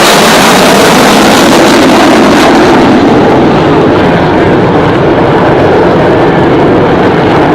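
A loud aircraft flying a low pass, its engine noise filling the air. The hissing top end fades after a few seconds as it moves away.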